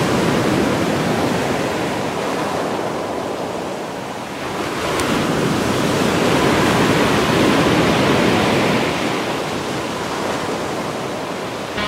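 Sea surf breaking and washing over a rocky, stony shore, swelling in and ebbing away twice in slow surges.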